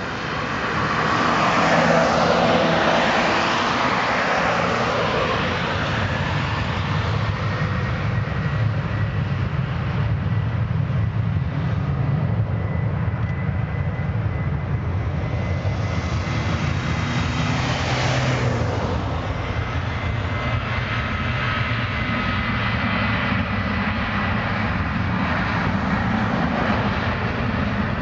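Boeing 737-800's twin CFM56-7B turbofan engines at takeoff power during the takeoff roll. The sound grows loud over the first couple of seconds, then holds as a steady deep jet rumble with a thin high whine from the fans.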